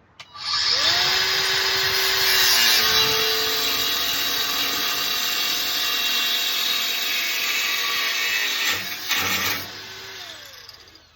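Snap-on cordless angle grinder spinning up and cutting through a cast iron railing bar, a loud, steady grinding of the disc on metal for about eight seconds. The motor then winds down near the end.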